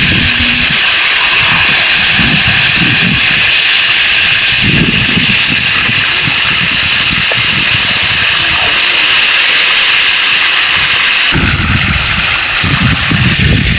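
Whole needlefish frying in shallow oil on a large flat pan, with loud, steady sizzling. The sizzle shifts abruptly about eleven seconds in.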